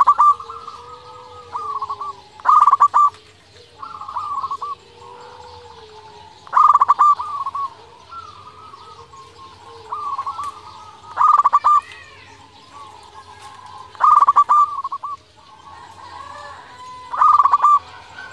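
Zebra dove (perkutut) cooing: six loud phrases, each a quick run of short staccato coos, spaced about three to four seconds apart, with softer cooing phrases between them.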